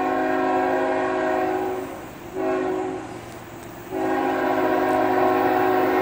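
Freight locomotive's air horn sounding a chord of several notes: a long blast ends about two seconds in, then comes a short blast, then another long blast. The long-short-long ending is the pattern of the grade-crossing signal.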